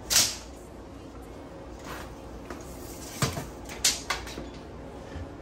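Steel tape measure being handled against a wall: a loud swish of the metal blade just after the start, then a few sharp clicks and rattles between about three and four seconds in.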